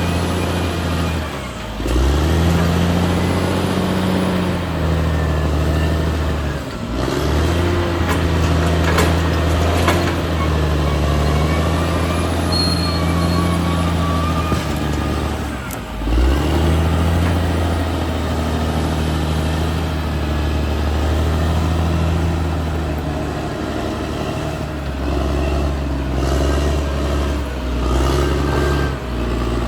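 Caterpillar D6R XL bulldozer's diesel engine running under load. Its note drops briefly three times, near 2, 7 and 16 seconds in, and picks up again each time.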